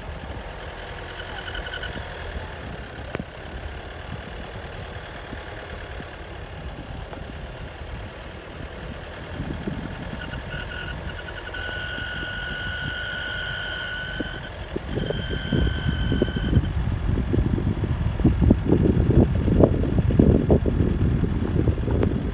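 A low outdoor rumble that grows louder and gustier after about fifteen seconds. A high steady tone sounds several times over it, the longest lasting about two seconds.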